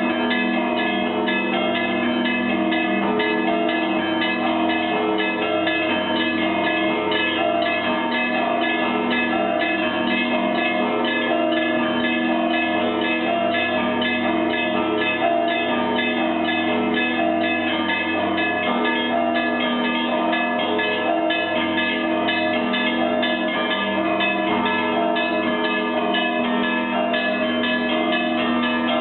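Russian Orthodox church bells of the Pskov-Caves Monastery ringing a continuous peal: many bells struck in quick, overlapping succession, with a steady low tone underneath.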